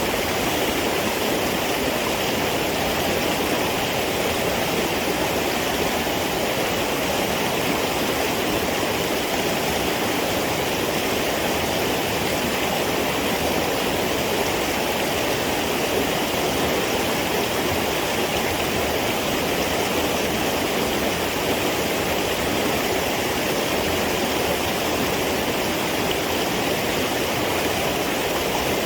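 A stream's water rushing steadily and without a break.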